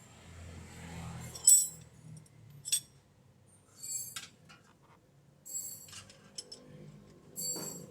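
Metal tools and parts clinking: a handful of separate sharp clinks with short bright ringing, the loudest about a second and a half in, the others spread through the rest.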